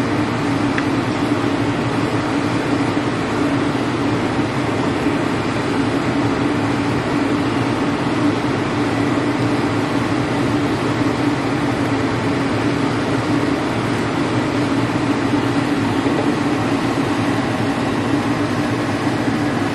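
Steady mechanical hum: an even hiss with one constant low tone, unchanging throughout.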